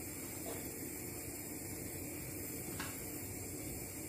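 Wooden spoon stirring chicken and carrots in a milky sauce in a frying pan, with two faint light taps against the pan, about half a second in and near three seconds in, over a steady hiss.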